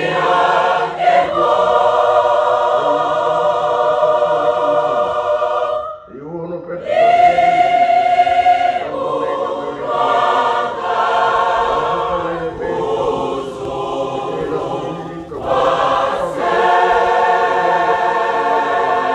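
A large mixed choir singing a hymn in long held chords, in three phrases with short breaks about six seconds in and again near the end.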